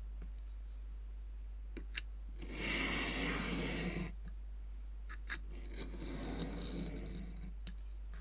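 Craft knife drawn along a plastic ruler, cutting paper in two scraping strokes, the first about two and a half seconds in and the second about six seconds in, with a few sharp ticks of blade and ruler in between.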